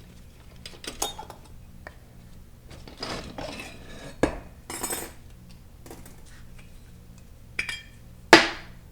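Steel 4L60E transmission parts being handled and set down on metal: a series of clinks and clanks, the loudest a ringing clank near the end.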